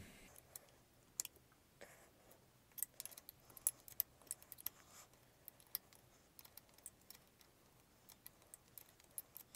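Faint, irregular metallic clicks from a wrench and hands working on the pinion-shaft lock bolt inside a Ford 8.8-inch differential as the bolt is removed.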